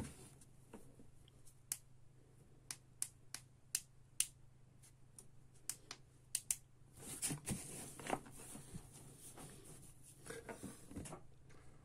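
A dozen or so light, sharp clicks and taps at irregular intervals as hands handle the air rifle and the mounted hunting torch's tail switch and coiled cable, then a brief rustle about seven seconds in. A faint steady hum runs underneath.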